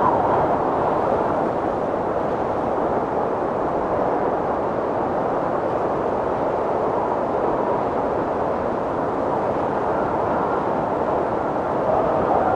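Blizzard wind blowing hard, a steady rushing noise that swells slightly near the start and again near the end.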